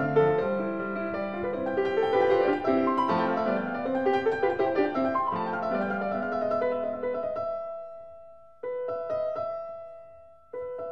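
Background piano music: a flowing run of notes, then slower held chords, each struck and left to fade, about every two seconds near the end.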